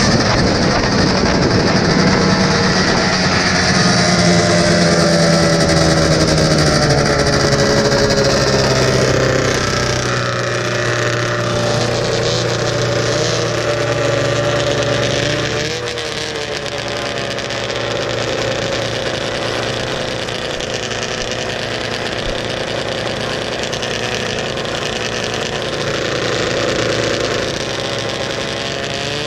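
Vintage racing snowmobile's two-stroke engine heard from on board: running hard at first, its pitch falling steadily over the first ten seconds as the sled slows, then running quieter at low, steady revs, with a brief rise near the end.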